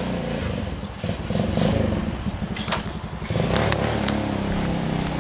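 Small gas engine of a ride-on kart running, its speed rising and falling a couple of times, with a few light clicks and rattles.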